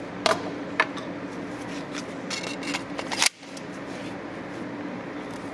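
Sharp clicks and light clatter of pistol magazines and accessories being handled, a couple of single clicks early and a busier run of them a little after two seconds, over a steady low hum. The sound cuts out abruptly a little over three seconds in, then the hum returns.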